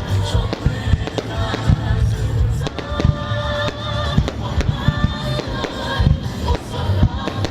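Fireworks going off in rapid, irregular bangs and crackles over loud music.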